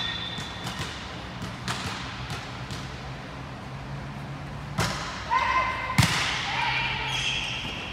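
Volleyball match play in a large gym: a few light ball knocks, then two sharp smacks of the ball being hit, about five seconds in and again a second later, with players' short shouts as the rally starts.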